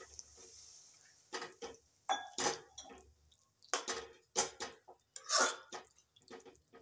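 Metal spatula stirring a wet jackfruit curry in a metal kadhai: a series of irregular scrapes against the pan and squelches of the sauce, with no steady rhythm.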